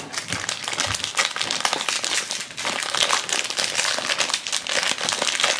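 Small blind-bag wrappers crinkling and crackling as they are handled and worked open, a dense run of irregular crackles.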